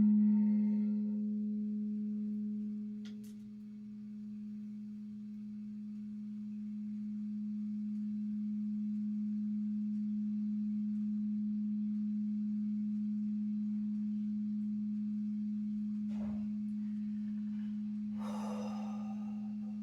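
A singing bowl ringing with one steady low hum. Its higher overtones fade in the first second, and the tone dips and then swells back up and holds. A faint click comes about three seconds in, and a short rustle near the end.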